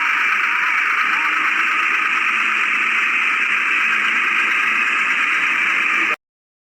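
Loud, steady hiss of noise that cuts off suddenly about six seconds in.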